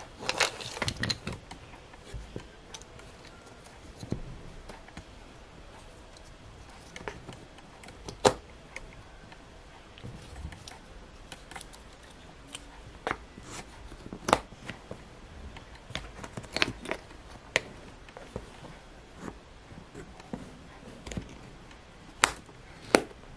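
Small wooden jigsaw puzzle pieces tapping and clicking against the wooden puzzle board as they are picked up and fitted into place. The knocks are sharp and scattered, with a cluster at the start and two close together near the end.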